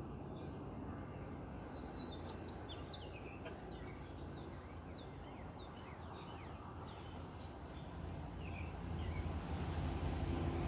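Small birds chirping in quick, busy runs of short notes over a low rumble. The rumble grows louder over the last few seconds as a freight train approaches.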